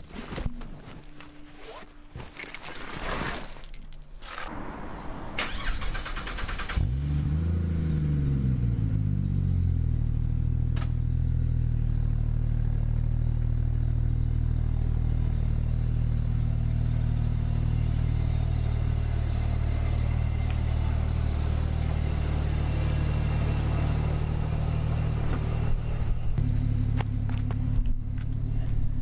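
Car engine starting: assorted knocks and rustling, then about seven seconds in the engine catches with a quick rev that rises and falls back, and settles into a steady idle. The idle note shifts slightly near the end.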